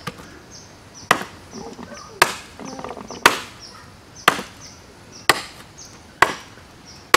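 Sharp chopping strikes on wood, evenly spaced about one a second.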